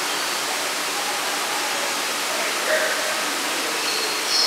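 Steady rushing of falling water, an indoor waterfall in a rainforest hall, with faint voices in the background.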